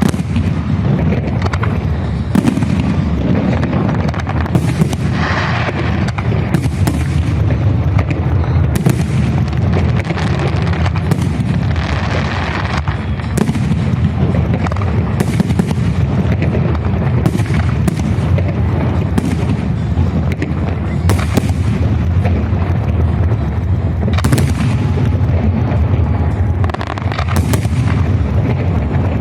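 Festive fireworks salute: a steady run of shell bursts, about one or two bangs a second, over a continuous low rumble of echoing explosions.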